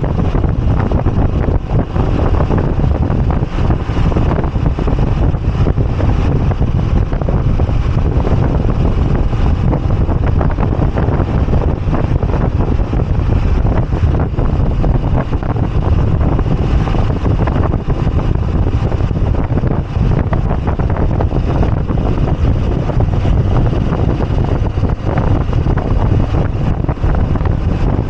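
Steady wind rush and buffeting on the microphone of a moving Moto Guzzi V85TT motorcycle, with its air-cooled V-twin engine running beneath as a low rumble.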